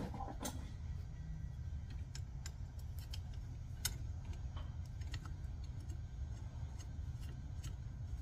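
Light metallic clicks and clinks of hand tools and bolts being handled while an injection pump is bolted on, over a steady low rumble. The clicks come irregularly, with a sharper one just under four seconds in.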